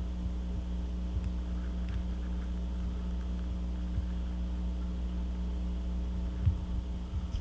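Steady low electrical mains hum with several evenly spaced overtones, under faint room noise; a soft low thump about six and a half seconds in.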